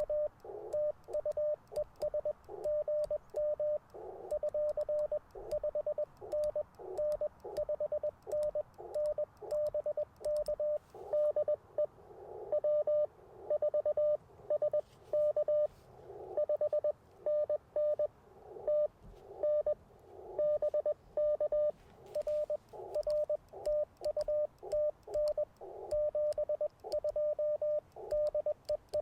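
Morse code (CW) from an Icom IC-705 amateur radio transceiver: a single mid-pitched tone keyed on and off in dits and dahs as stations are worked. In some stretches the signals come through blurred with band static.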